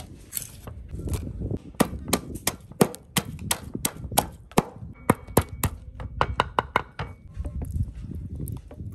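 A knife chopping on a cutting board: a run of sharp, irregular strokes, about three a second, that stops about seven seconds in.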